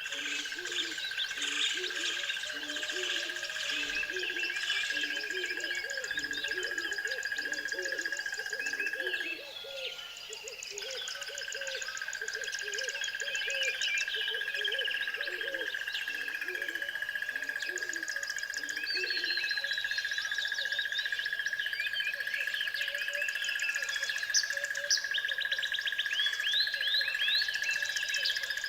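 Outdoor animal chorus: many birds chirping and twittering over a steady high-pitched drone. Repeated low hooting calls come a little faster than one a second and stop about two-thirds of the way through.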